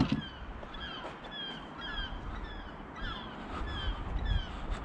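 Birds calling: a run of short, falling calls, two or three a second, over a low background rumble.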